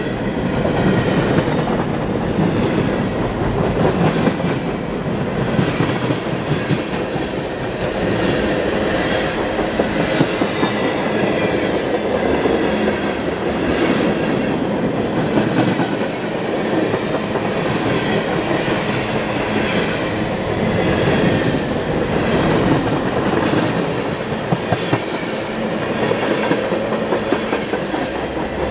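Canadian Pacific mixed freight train passing close by: a steady rumble of freight cars' steel wheels on the rails with a rhythmic clickety-clack.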